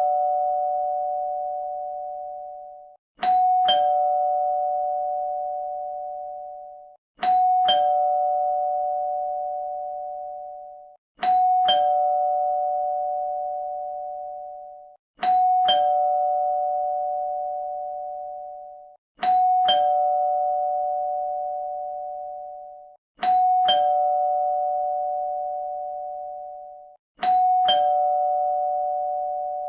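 Two-tone doorbell chime ringing ding-dong, a higher note then a lower one, each ringing out and fading. The chime repeats about every four seconds, about seven times.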